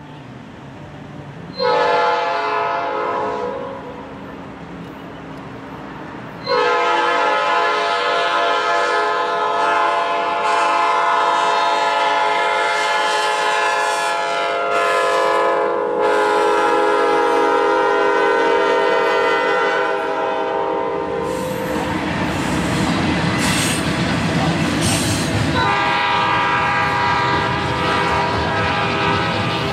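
Norfolk Southern freight locomotive's air horn sounding a chord of several notes: a short blast about two seconds in, a long blast from about six seconds to about twenty, and another near the end. Between the blasts, the rumble and clatter of the freight train's wheels as double-stack intermodal cars roll past.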